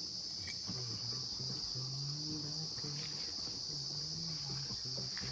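Steady, unbroken high-pitched trilling of an insect chorus, with a faint low hum that comes and goes underneath.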